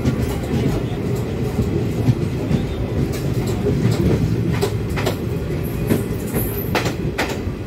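Passenger train coach running along the track, heard from its open doorway: a steady deep rumble with a few sharp wheel clacks over rail joints.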